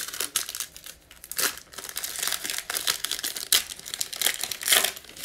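Foil-lined Illusions basketball card pack being torn open and its wrapper pulled apart by hand: a dense run of sharp crinkles and crackles, loudest near the end.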